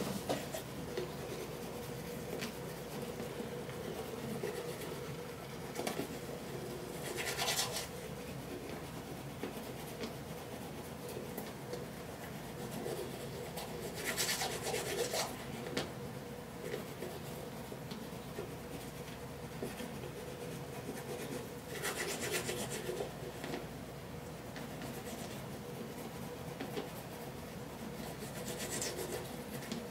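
Teeth being brushed with a toothbrush: steady scrubbing, with louder stretches about every seven seconds.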